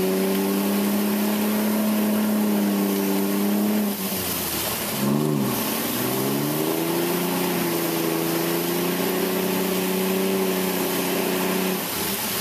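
Ford Ranger pickup engine revving hard and held at high revs while its wheels spin in deep mud and icy water without traction: the truck is stuck. The revs drop about four seconds in, blip once, climb again and fall away near the end.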